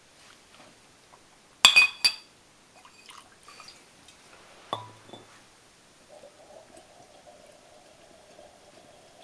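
Glass clinking twice in quick succession, each clink ringing briefly, then a few light taps and a knock, followed by a faint steady pouring sound.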